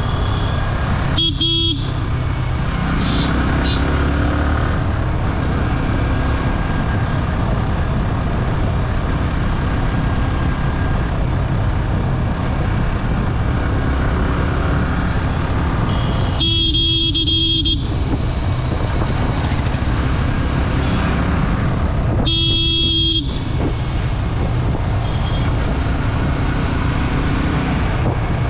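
Yamaha R15's single-cylinder engine running at a steady cruise, with wind and road noise. A vehicle horn sounds three short times: about a second in, and twice in the second half.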